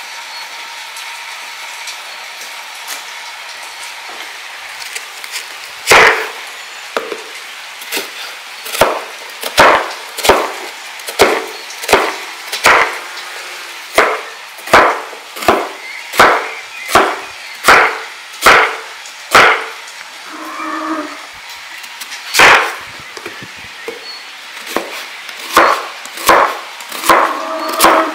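Kitchen knife slicing an onion on a wooden cutting board: sharp knocks of the blade striking the board, about one to two a second, starting some six seconds in and pausing briefly a little past halfway.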